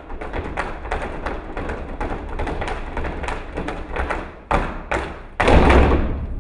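A dance ensemble's feet stamping and tapping on a stage floor in a fast, irregular run of knocks, with no music. It ends in a louder, fuller burst of stamping about five and a half seconds in.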